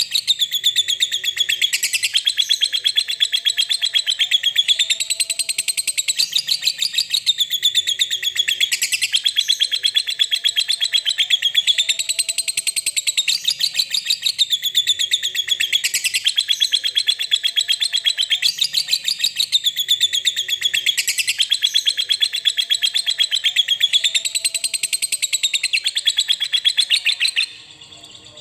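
Lovebird ngekek: one long, unbroken, high-pitched chattering trill of very rapid notes that rises and falls in a wave about every two seconds, then stops abruptly near the end.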